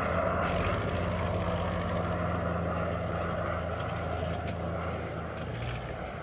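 Zlin Z-137T Agro Turbo agricultural aircraft flying by, its Walter M601 turboprop engine and propeller giving a steady low drone that slowly fades.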